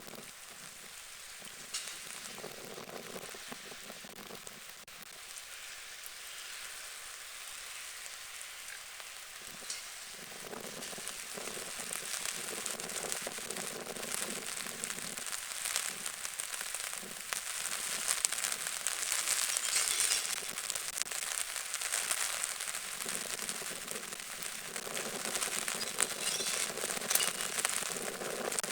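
Rain falling onto lake water: a steady, dense noise of many small drops with fine clicks, growing gradually louder.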